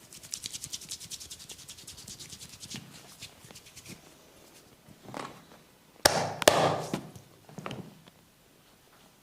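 Massage sounds: fast scratching strokes of fingers through hair and on the scalp, about ten a second, fading out after about three seconds. About six seconds in come two loud sharp smacks about half a second apart, with a brief rustle.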